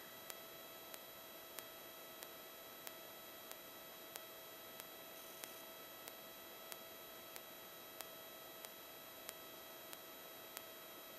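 Faint hiss and a steady electrical whine on a light aircraft's intercom audio feed, with a sharp tick repeating a little under twice a second. This is electrical noise on the line while no one is transmitting.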